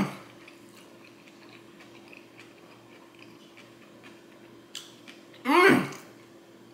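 A man chewing a mouthful of sushi, with faint mouth clicks. About five and a half seconds in comes a short, loud vocal 'mmm' of enjoyment that rises and then falls in pitch.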